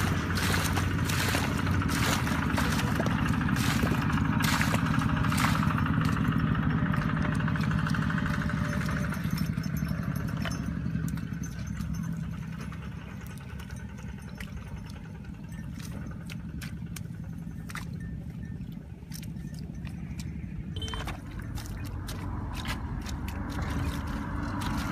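Wet mud being scooped and slapped by hand, making irregular squelches and splashes, over a steady low drone that fades about halfway through.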